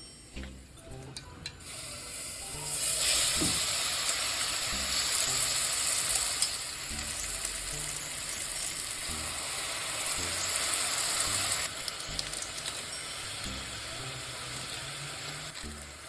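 Chapagetti noodles sizzling in a hot pan while being stirred. The sizzle starts about three seconds in, is loudest over the next few seconds and eases somewhat near the end.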